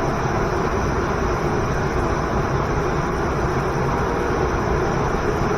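Steady, unbroken rush of a waterfall pouring into a river.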